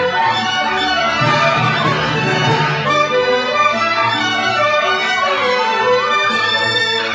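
Orchestral music with strings and brass playing.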